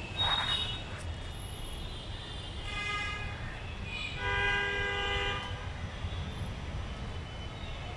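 Road traffic: a steady low rumble with vehicle horns honking over it, a short honk about three seconds in and a longer one of more than a second just after four seconds in.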